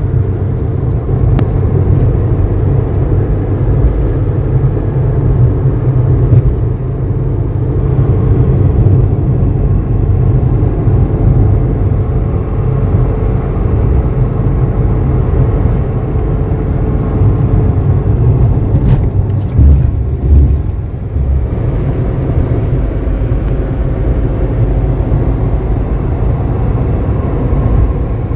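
A loud, steady machine hum from an electric motor running, with a steady whining tone above the low drone and a brief dip in level a little over two-thirds of the way through.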